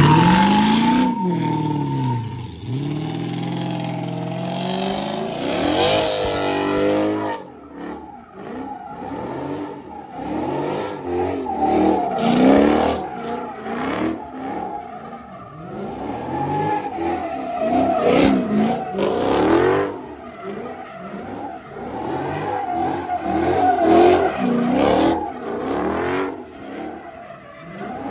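Dodge Charger's engine revving hard, its pitch sweeping up and down again and again, with tires squealing as the car spins donuts in a burnout.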